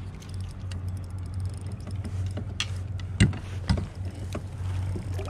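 Handling sounds from landing a fish from a kayak: a steady low hum under a scatter of sharp clicks and knocks, with two louder knocks a little past three seconds in.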